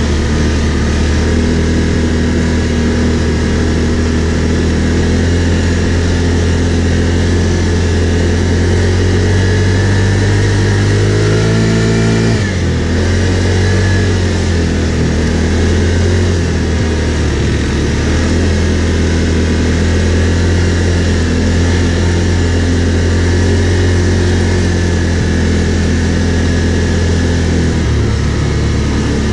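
Can-Am Outlander 570 ATV engine running under way on a dirt trail. The pitch climbs for a few seconds as the throttle opens, drops suddenly about twelve seconds in as the throttle is released, then settles back to a steady run.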